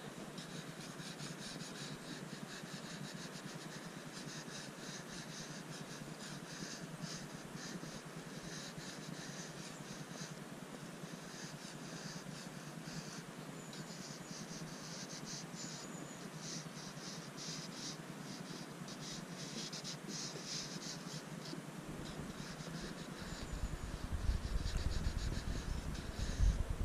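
Conté crayon scratching on sketchbook paper in short, irregular clusters of strokes. A louder low rumble comes in near the end.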